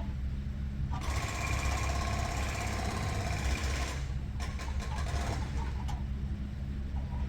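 A handheld power tool runs with a motor whine for about three seconds, starting about a second in, then gives a few shorter bursts. A steady low hum lies underneath throughout.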